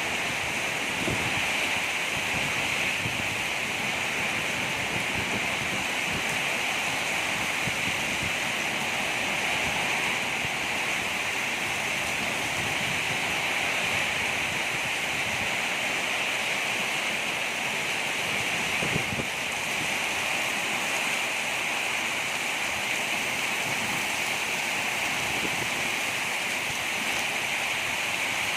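Heavy rain pouring in a storm, a steady hiss with some wind.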